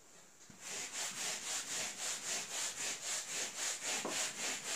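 Whiteboard eraser scrubbing back and forth across the board to wipe off marker writing, a rhythmic rubbing of about four strokes a second that starts about half a second in.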